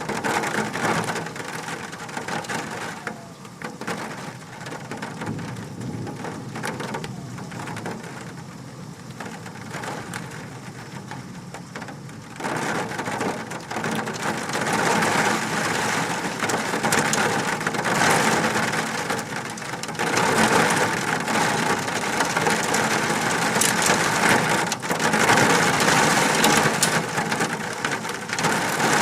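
Hailstones falling hard and clattering on surfaces in a dense, continuous patter of impacts, growing heavier and louder about halfway through.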